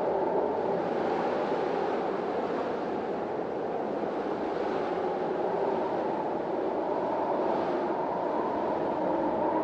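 Storm wind blowing steadily, a dense rushing noise with a couple of slight swells as gusts come and go.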